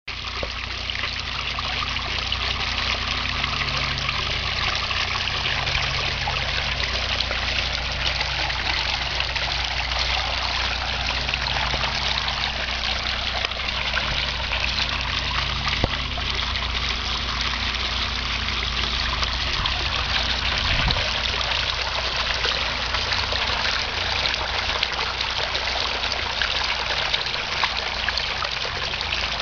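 Sump-pump-fed bubbling rock fountain: water welling up out of the top of a boulder and splashing down into a stone basin, a steady trickle and splash.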